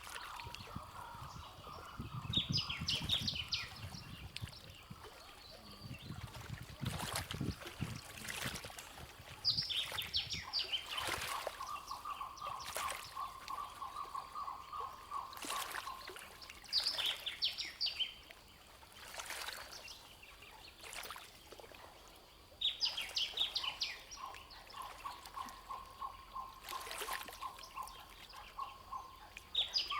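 A songbird repeating a short, high, falling song phrase about every seven seconds, with a steadier, lower trill in between and trickling water underneath. Occasional sharp clicks.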